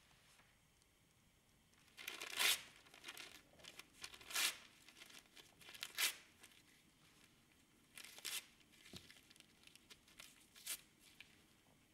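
A sheet of paper being torn by hand: five main rips about two seconds apart, with smaller tears and rustling in between.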